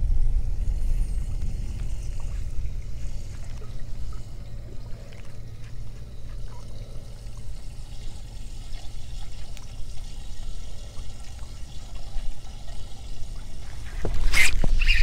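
Water lapping and trickling against a boat's hull, with wind rumbling on the microphone. Near the end comes a loud splash close by, which the anglers take for a fish hitting close to the boat.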